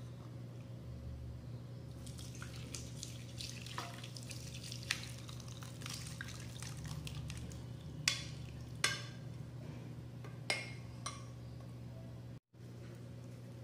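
Whey and soft curds of split milk pouring from an aluminium saucepan into a muslin cloth, trickling and splashing, followed by a steel spoon clinking sharply against the pan a few times as the last curds are scraped out. A steady low hum runs underneath.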